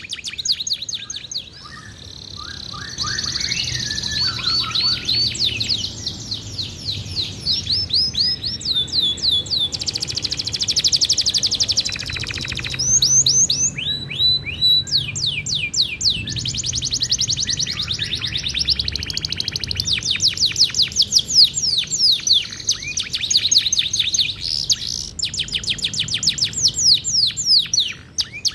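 Domestic canary singing a long, nearly unbroken song of fast trills and rolls made of quick, repeated down-sweeping notes, with a buzzing rattle about ten seconds in.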